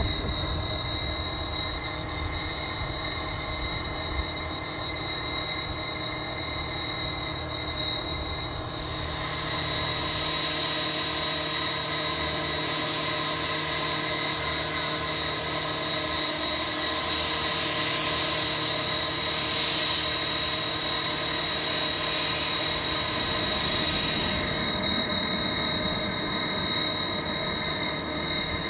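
JNR Class C57 steam locomotive standing in steam, with a steady high whine throughout. A loud hiss of escaping steam starts suddenly about nine seconds in and cuts off about fifteen seconds later.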